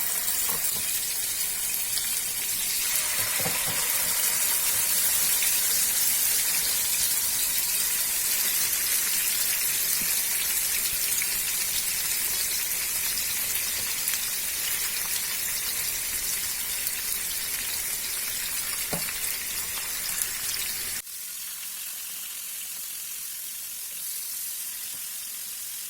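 Fish pieces shallow-frying in hot oil in a pan, a steady sizzle. About three-quarters of the way through it cuts to a quieter sizzle.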